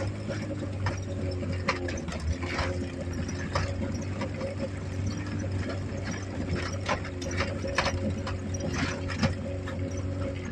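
Fiat Panda 750's small four-cylinder engine running steadily with a loud, rough exhaust note from a broken exhaust manifold, which makes it sound like a tank. Irregular knocks and rattles come through as the car jolts over a rough dirt track.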